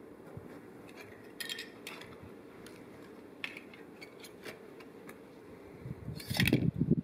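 Light metallic clinks and scrapes, a few scattered ones, from a steel rod and tongs working pieces of metal in a small smelting crucible. Near the end comes a louder burst of rustling and low thumps.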